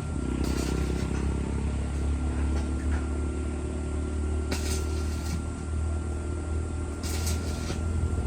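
Arc welding machine humming steadily, with short bursts of hiss and crackle about halfway through and near the end, like brief tack welds on the steel frame.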